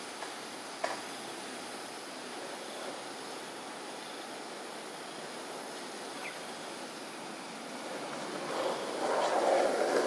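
Steady hum of distant road traffic, swelling over the last couple of seconds as a vehicle passes, with one small click about a second in.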